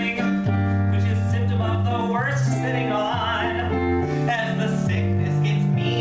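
A musical-theatre song played live on keyboard and electric guitar, with a bass line stepping from note to note about once a second and a man's voice singing over it.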